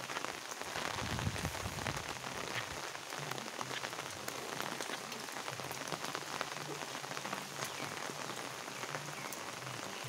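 Steady rain falling on wet paving, roofs and foliage, with many close drops ticking. A brief low rumble comes about a second in.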